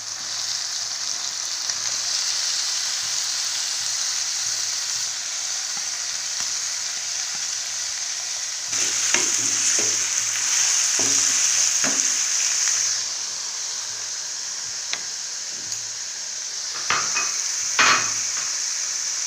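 Chicken mince sizzling in hot oil in a kadhai with browned onions and ginger-garlic paste, with a spoon knocking and scraping against the pan as it is stirred. The sizzle grows louder with the stirring about halfway through and again near the end.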